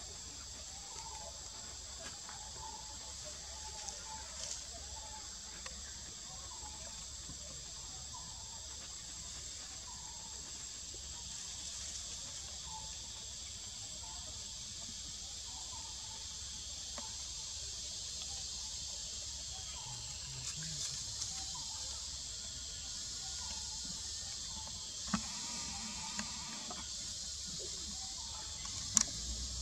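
Insects buzzing steadily at a high pitch, with faint short chirps about once a second in the first half and two sharp clicks near the end.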